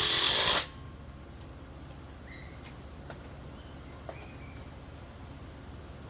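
Cordless impact drivers running under load, cutting off sharply well under a second in. After that only a low steady background hum with a few faint high chirps.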